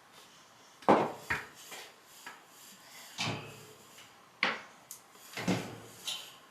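Hard knocks and scrapes, about six of them, as an air-return vent and furnace filter are handled; the sharpest knock comes about a second in.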